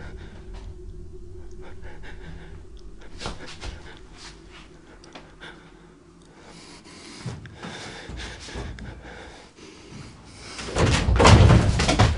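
Rustling and scattered clicks as a gloved hand handles bedding and clothing, then a burst of loud, heavy knocking and thumping near the end.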